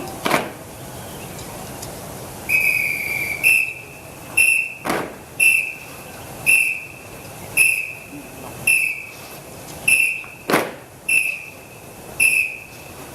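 A whistle sounding in a steady beat: one long blast about two and a half seconds in, then short blasts about once a second. Two sharp, louder knocks or shouts cut in between them.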